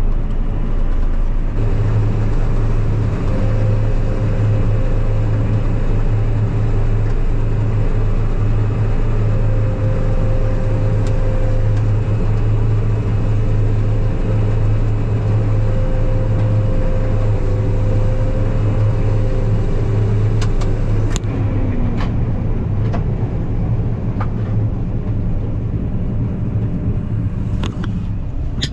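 Combine harvester running under load while cutting soybeans: a steady low engine and machinery drone with a thin whine above it. About two-thirds of the way through, the whine slides down in pitch and the machine sound eases slightly.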